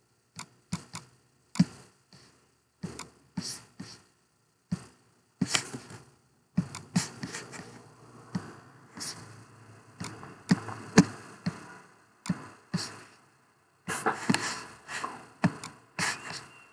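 Irregular sharp clicks and knocks, one or two a second, some followed by short bursts of hiss or rustle, from a computer mouse being clicked and a desk being handled close to the microphone.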